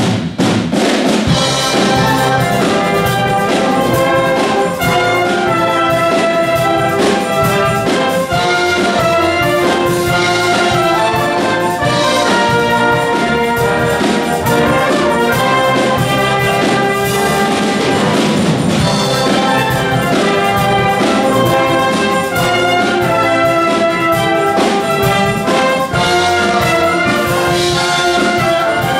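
Concert wind band playing a big-band-style piece, with trumpets and trombones carrying the tune over a steady drum kit beat.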